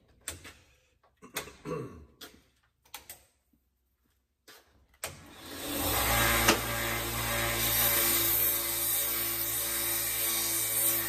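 Small bench belt sander switched on about five seconds in, its motor spinning up and then running steadily with a hum, a whine and a hiss, while a wooden hammer handle is sanded down on the belt to fit the head. A few light knocks of handling come before it starts.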